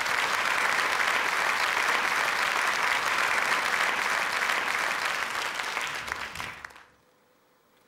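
Theatre audience applauding steadily. The clapping fades out about seven seconds in.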